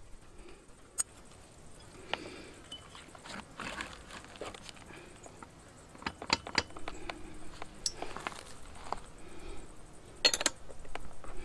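Scattered metallic clinks and light clatter of a partly dismantled chainsaw and small tools being handled and moved, with a louder quick cluster of clinks near the end.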